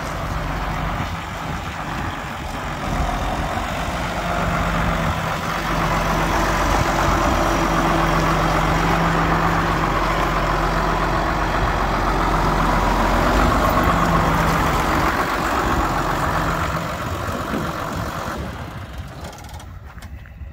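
Case IH MXM190 tractor's six-cylinder diesel engine running as the tractor drives up close. It gets louder a few seconds in, holds steady, then fades out near the end.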